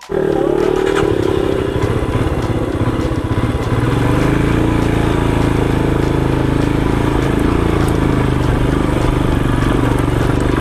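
Motorcycle engine running steadily under way as the bike is ridden up a rough mountain road. Its note eases a little over the first couple of seconds, then holds.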